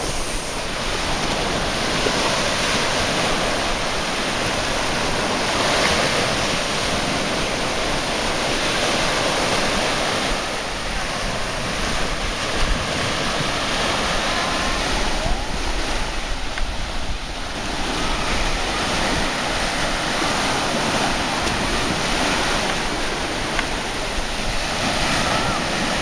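Small surf breaking and washing up on a sandy shore, a steady rush that swells and eases every few seconds, with wind rumbling on the microphone.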